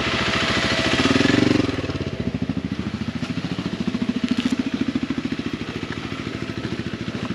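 Motorcycle engine running close by, louder for about the first second and a half, then settling to a steady idle.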